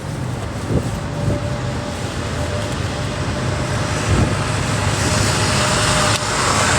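Steady city street traffic noise with a low rumble and a thin steady whine, swelling louder near the end, with a single sharp click shortly before it ends.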